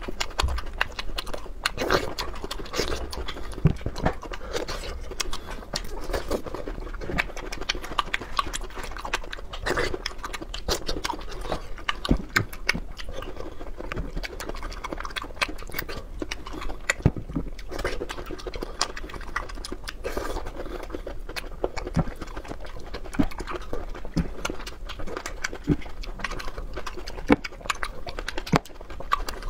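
Close-up eating sounds of a person chewing soft yellow balls and cherry tomatoes: steady chewing and mouth noises with many quick, small clicks and no break.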